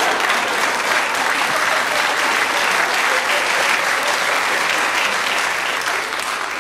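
A studio audience applauding after a punchline, steady and dense, easing off near the end.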